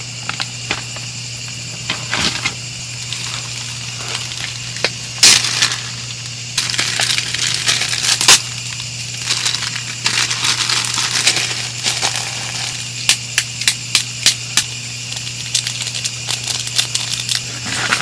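Plastic bag crinkling and rustling with bedding, full of short sharp clicks and crackles, over a steady low hum. A small dog sniffs in quick snuffles around the middle.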